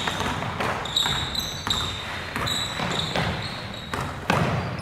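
Basketball being dribbled and bounced on a hardwood gym floor, several irregular thuds with the loudest a little after four seconds in. Short high sneaker squeaks come from players cutting on the court.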